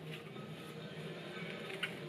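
Curly leaf lettuce being pulled apart by hand: faint crisp rustling of the leaves, with a small snap near the end, over a low steady hum.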